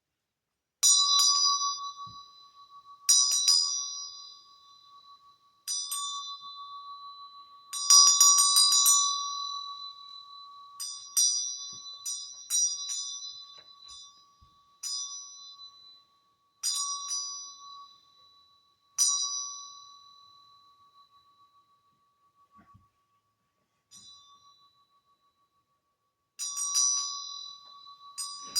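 A small bell struck about a dozen times, each stroke ringing on in a clear high tone that fades slowly; a few times it is rung in quick rattling runs of strokes, and near the end the strokes grow faint before a last run.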